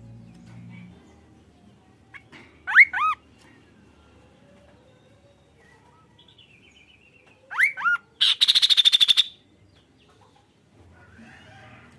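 Kaso-kaso bird calling: a pair of loud, clear, curving whistled notes about 3 seconds in, another pair about 7.5 seconds in, then a loud, harsh rapid rattle lasting about a second.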